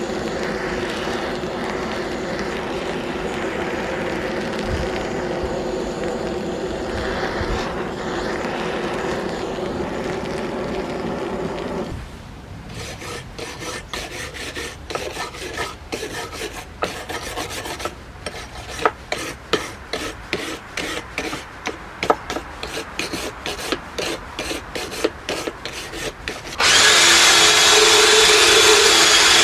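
Restoration work on a vintage carpenter's vise. A power tool runs steadily for about twelve seconds and stops. Then come uneven rasping strokes made by hand, two or three a second. Near the end a louder power tool starts up.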